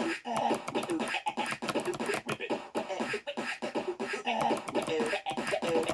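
Rapid clicking of mechanical keyboard keys being typed fast, about ten keystrokes a second, with a pitched voice or vocal music sounding over it.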